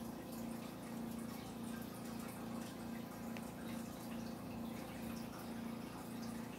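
A low steady hum that swells and fades a little less than twice a second, over a faint even hiss.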